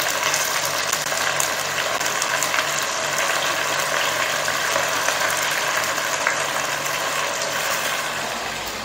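Shallots, curry leaves and tomato frying in oil in a clay pot: a steady crackling sizzle, with a faint low hum beneath.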